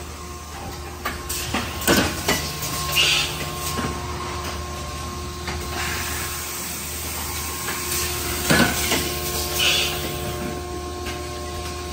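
Industrial machine running with a steady hum, going through a repeating cycle about every six and a half seconds: sharp metallic clunks, then a short hiss like air being let out.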